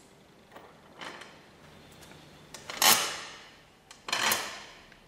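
Hands fitting a nut and washer onto the steel frame of a sprayer's plastic tank. There are light clicks of the metal fittings, then two louder clattering handling sounds, about three and about four seconds in; the first is the loudest.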